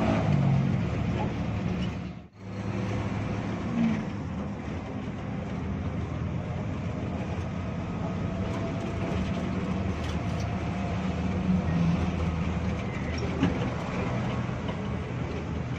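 Diesel engine of a 2000 Hino RG1JSKA bus running steadily under way, heard from inside the cabin at the front, with road noise underneath. The sound drops out abruptly for a moment about two seconds in.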